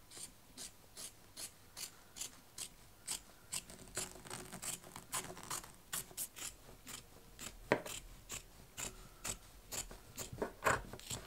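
Fabric scissors snipping through cream cloth in short repeated cuts, about four snips a second, with a couple of louder snips in the second half.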